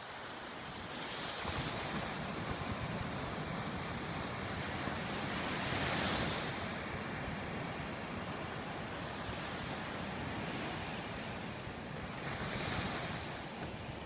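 Sea surf breaking and washing up a sandy beach: a continuous rush that swells as waves break, about a second and a half in, loudest around six seconds in, and again near the end. Wind rumbles on the microphone underneath.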